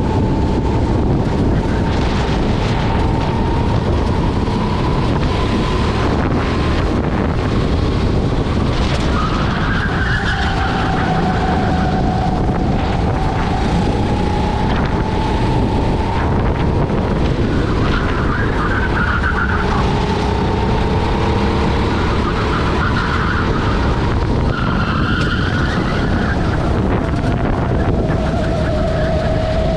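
Rental kart's single-cylinder engine running at racing speed, its pitch rising and falling with the throttle through the corners, heard from onboard with wind buffeting the microphone.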